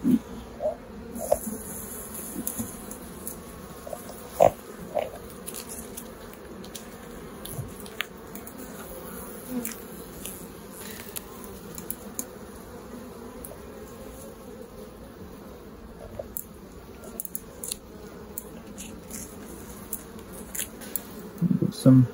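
Honeybees buzzing steadily over an open hive. Scattered light clicks run through it, and there is a louder knock near the end.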